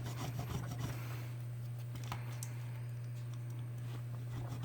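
Faint scraping and scratching as old adhesive is cleaned off a smartphone's frame, mostly in the first second, over a steady low hum.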